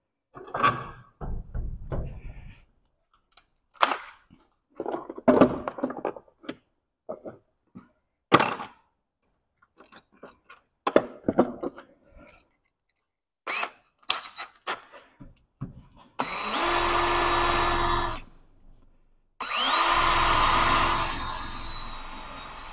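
Scattered clunks and rattles of tools and metal being handled. Then an electric drill runs twice for about two seconds each, trying to bore a hole in a small metal L hook. The second run spins up with a rising whine and then slowly dies away.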